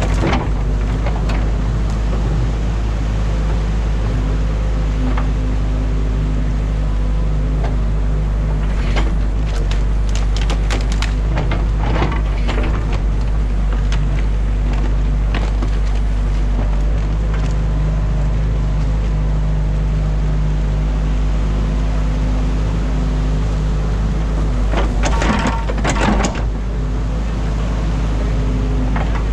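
Excavator's diesel engine running steadily under load, heard from inside the cab. Clusters of snapping and knocking from the bucket working beaver-dam sticks and branches come about nine to twelve seconds in and again near the end.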